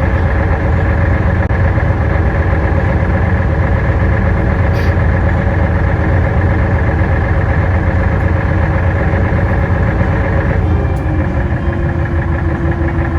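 Tour boat's engine running steadily, a loud drone with a layered mechanical hum; near the end the engine note shifts and settles slightly lower.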